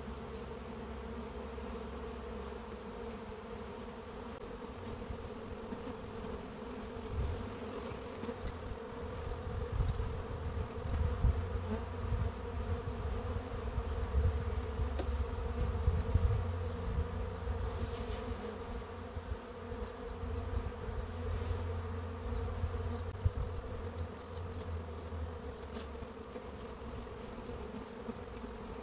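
Honeybees buzzing in a steady hum around the entrance of a Langstroth hive, with a low rumble swelling through the middle and a couple of brief scrapes.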